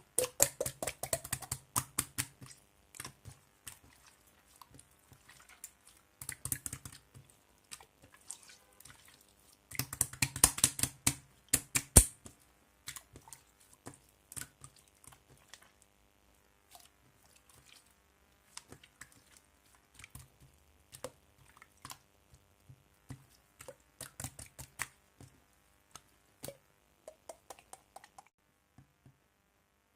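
Slime being squeezed and poked by hand, making quick runs of wet clicks and pops in bursts. The densest and loudest bursts come near the start and about ten to twelve seconds in; later the clicks thin out, and they stop shortly before the end.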